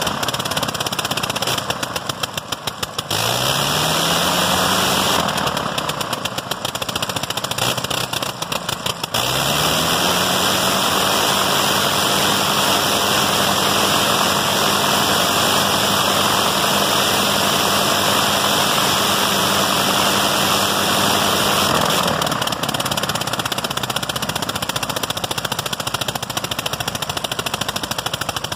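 1918 Gnome nine-cylinder rotary aircraft engine running with its propeller turning. About two seconds in, and again from about five to nine seconds, it drops into an uneven run of separate popping firing strokes, each time picking its speed back up with a rising note. It runs steady through the middle and turns rough and popping again about 22 seconds in.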